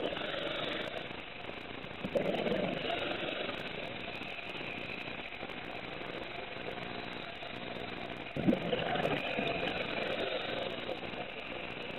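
Scuba diver's regulator breathing underwater: exhaled bubbles rumble and gurgle past the mask about two seconds in and again about eight seconds in, with the hiss of inhaling through the regulator and a steady low hum between them.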